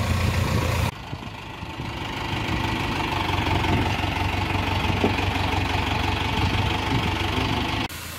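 Tractor engine idling steadily with a low, even pulsing. The sound drops abruptly about a second in and changes again near the end.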